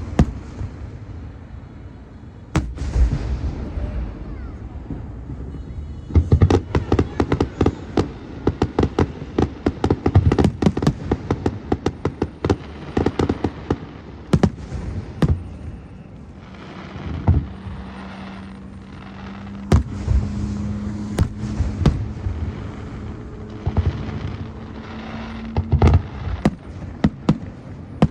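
Aerial fireworks going off: deep booms of shells bursting, with dense runs of rapid crackling between them. A steady low drone holds through much of the second half.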